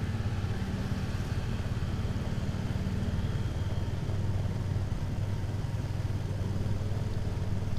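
Motorcycle engine running at a steady, even pace while riding, with road and wind noise.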